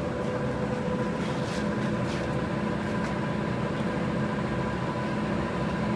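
Steady mechanical hum of a Dean Smith & Grace Type 21 heavy-duty lathe, with a few faint light scrapes as the top slide of the tool post is wound along by its hand crank.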